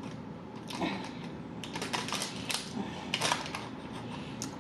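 Eating crispy fried chicken close to the microphone: a run of quick crackly clicks from the crunchy breading, thickest in the middle, with a couple of short mouth noises.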